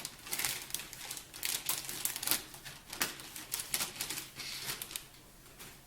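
Packaging rustling and irregular light clicks and taps as items are handled and lifted out of a box; the handling dies away near the end.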